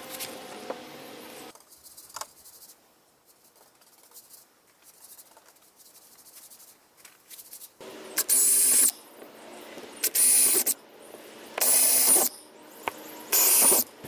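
Cordless drill/driver driving screws through a wooden keel strip into a boat hull: four short bursts of the motor in the second half, about a second and a half apart, each spinning up with a high rising whine.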